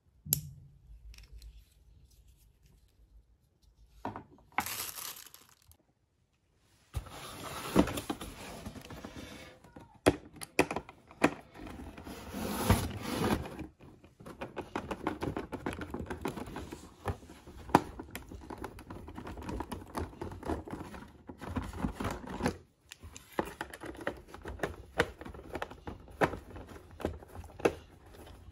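A click just after the start, then from about seven seconds in, a hand screwdriver turning screws out of plastic retainer discs in a cardboard box: cardboard scraping and rustling, dotted with small clicks and knocks.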